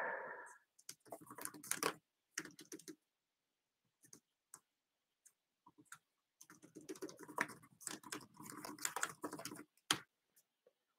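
Typing on a Framework laptop's built-in keyboard: quick runs of key clicks in bursts with short pauses, a few scattered taps in the middle, a long busy run toward the end, then one sharper single key press.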